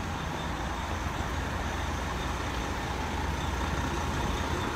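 A city bus's diesel engine running close by with a steady low rumble, amid street traffic noise.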